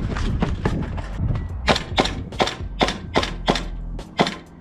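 Airsoft guns firing a run of sharp single shots, about three a second, loudest in the middle stretch, with one last shot near the end.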